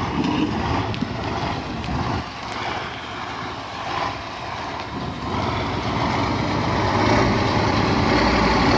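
Heavy cab-over truck's diesel engine running under load as it ploughs through broken river ice, with a few sharp knocks of ice slabs against the truck. The engine grows louder over the last couple of seconds.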